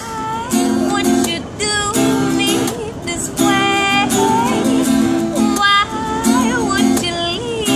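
A woman singing over a strummed acoustic guitar. Her voice bends up and down through melodic runs while the guitar chords repeat steadily beneath.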